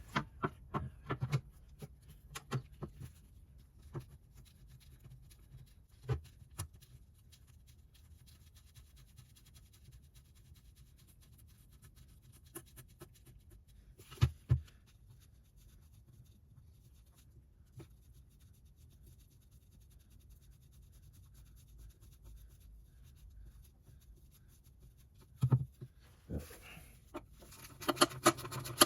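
Occasional light clicks and knocks of parts and tools being handled, with long quiet stretches between. The loudest are a pair of knocks about halfway through and another cluster near the end.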